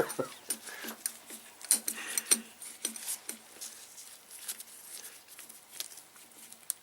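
Irregular light clicks and taps of hand tools and small metal and plastic parts being worked on a motorcycle handlebar while a heated-grip controller bracket is fitted, a few louder ones in the first couple of seconds, then fainter.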